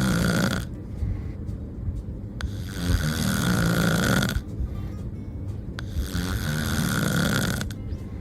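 Loud snoring: three long, rasping snores about three seconds apart.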